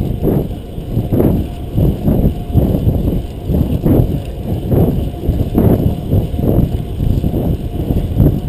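Fixed-gear racing bicycle ridden hard at race speed, heard mostly as heavy wind rumble on the action camera's microphone together with road noise, swelling and easing about once a second.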